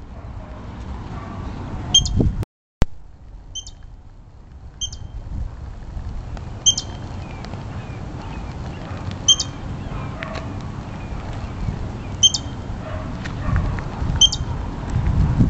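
Short high chirps, repeated about seven times at uneven gaps of one to three seconds, over a steady low rumble. The sound cuts out completely for a moment about two and a half seconds in.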